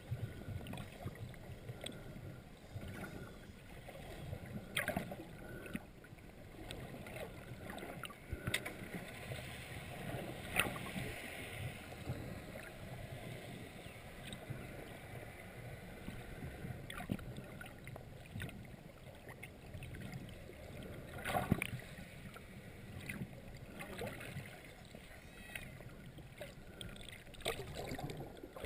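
Muffled sea water sloshing and gurgling around a GoPro Hero 2's sealed underwater housing just below the surface, with scattered sharp knocks and clicks, the loudest about two-thirds of the way through.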